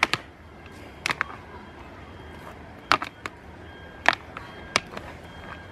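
Goat kids butting heads, their small horns knocking together in a handful of sharp clicks, some in quick pairs.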